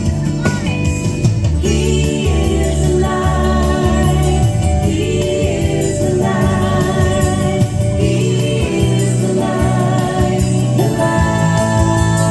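Upbeat Christian children's pop song with sung vocals over a steady beat.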